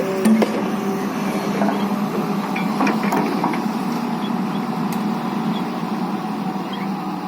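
A steady low hum, like a motor running, with a few faint short high chirps and clicks over it.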